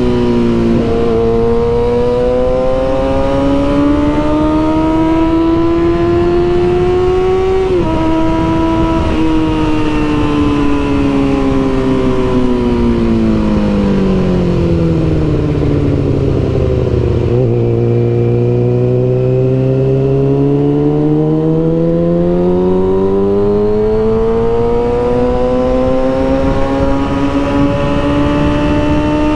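Kawasaki ZX-6R inline-four engine through an M4 GP exhaust, riding under load. The engine note climbs, steps at a gear change about eight seconds in, falls steadily as the bike slows, then climbs again from about eighteen seconds in.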